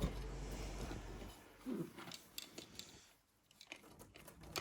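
Scattered small clicks and light knocks from an airsoft AEG being handled, with several quick clicks in the second half and a faint hiss in the first second or so.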